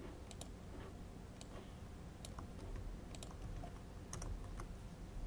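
Faint typing on a laptop keyboard: about ten scattered, irregular keystrokes.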